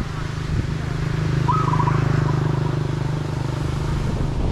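A small engine, like a motorcycle's, running steadily and growing a little louder over the first two seconds, with a short trilled bird chirp about a second and a half in.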